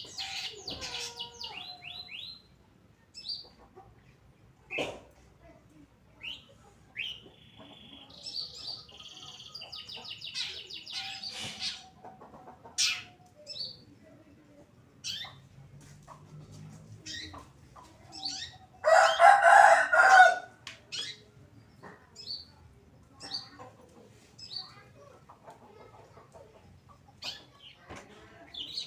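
Long-tailed shrike (cendet) calling: short, sharp chirps scattered throughout, a few seconds of rapid high chatter, and one loud, harsh call lasting about a second and a half in the last third.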